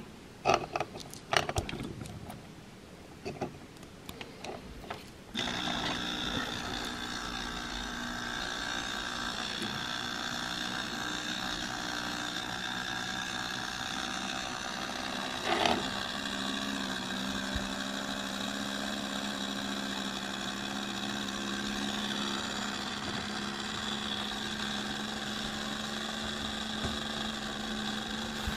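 Handling clicks and knocks on a small plastic ornament, then about five seconds in the small electric motor of a Hallmark 1990 Children's Express Magic Light & Motion ornament starts and runs with a steady whir that drives its moving toy train. A single knock comes about halfway through.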